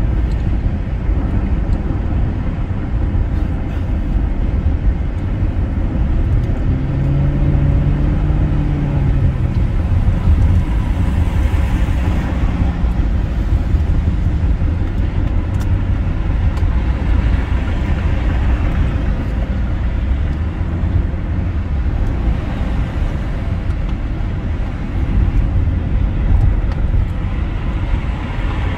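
Car driving at highway speed: a steady low road and engine rumble, with a brief hum that rises and falls about seven seconds in.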